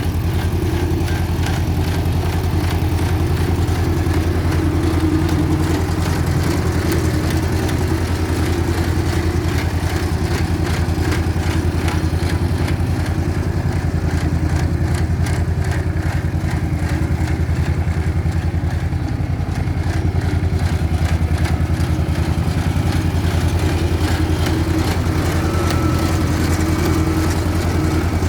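Road roller's diesel engine running steadily with a low hum while the roller compacts soil.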